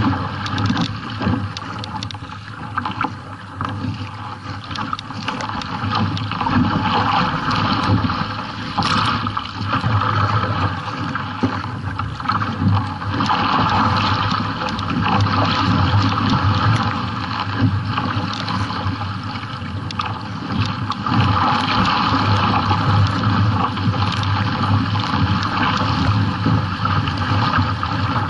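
Water rushing and splashing along the hull of a kayak paddled fast through choppy sea, a loud uneven wash that rises and falls, with wind buffeting the microphone.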